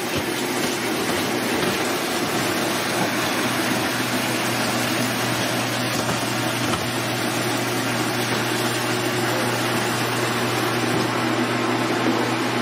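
A steady machine hum and hiss, unchanging throughout.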